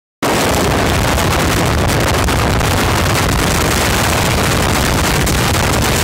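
Wind buffeting the microphone at the open window of a moving train, over the train's running rumble: a loud, steady rush.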